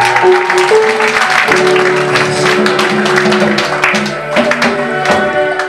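Church praise band music: sustained keyboard chords over a steady percussion beat.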